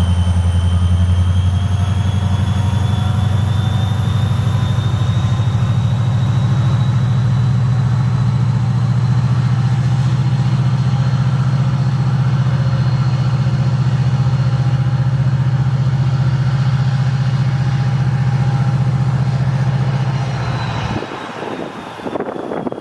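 Diesel locomotive engine working under load, a steady heavy rumble with a high turbocharger whine that slowly rises in pitch and then eases. The sound cuts off abruptly near the end.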